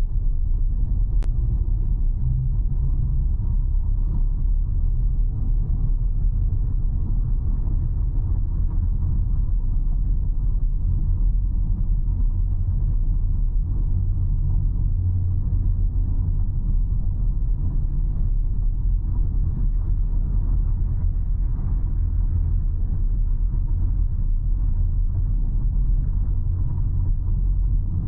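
Steady low rumble of a car driving along, road and engine noise without pauses.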